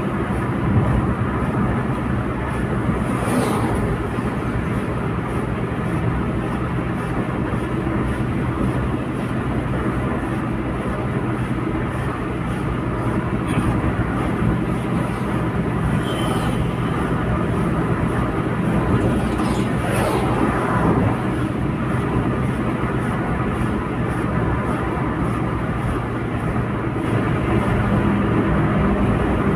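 Steady road and engine noise inside a car cruising on a highway, with a constant low hum. Brief swells come a few seconds in and twice more past the middle.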